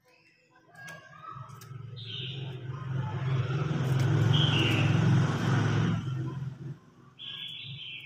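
Red-whiskered bulbul giving short bright calls, once near 2 s, again about halfway and once more near the end. A passing motor vehicle's engine hum, the loudest sound, builds up, peaks in the middle and falls away about three-quarters through.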